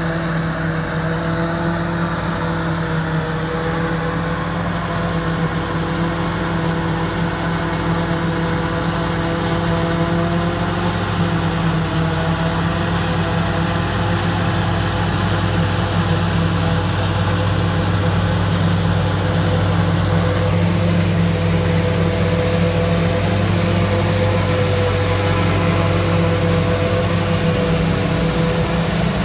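Claas forage harvester chopping standing maize while a tractor pulling a silage trailer runs alongside it. The engines make a steady, heavy drone that grows slightly louder as the machines come closer.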